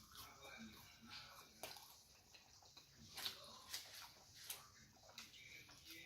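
Close-miked chewing and lip smacking while eating a fast-food sandwich: irregular wet mouth clicks and smacks.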